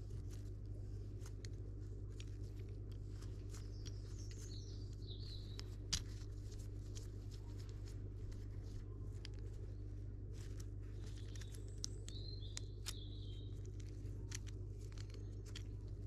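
Faint, irregular clicks and ticks of a barb insertion tool being worked to press the barb into a hydraulic brake hose, with one sharper click about six seconds in, over a steady low hum. A bird chirps briefly twice in the background.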